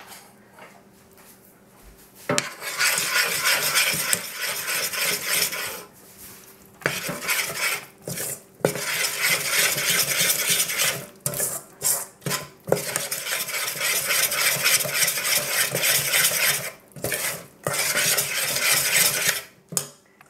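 A fork stirring and beating brownie batter in a small stainless steel saucepan, scraping and clinking against the metal. It starts about two seconds in and goes on in long spells with short pauses.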